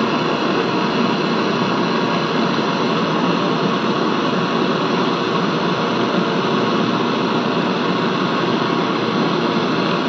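Handheld butane canister torch burning steadily with a continuous hissing flame, played on the copper tubing of a window air conditioner to weld a refrigerant leak.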